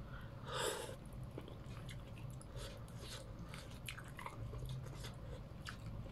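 A person eating noodle soup: quiet chewing and small mouth noises, with a short breathy sound about half a second in as a spoonful goes into the mouth, then scattered small clicks.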